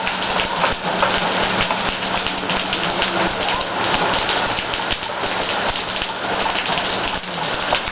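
Pouring rain: a steady, dense hiss full of individual drops dripping and spattering on hard surfaces.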